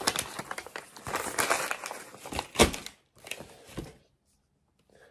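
Gift-wrapping paper being torn and crumpled as a present is unwrapped. The crackling is dense for about three seconds, with one louder crackle near the middle, then two brief rustles before it goes quiet.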